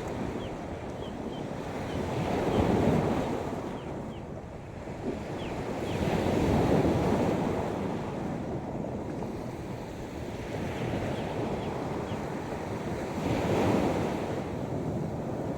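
Sea waves washing onto a beach in slow surges that swell and fade every few seconds, with wind buffeting the microphone. Faint short high chirps come through in the first few seconds and again later.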